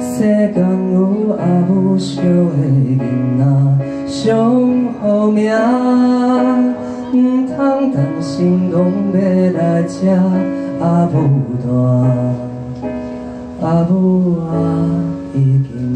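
Man singing a song live into a microphone, accompanying himself on a Korg keyboard.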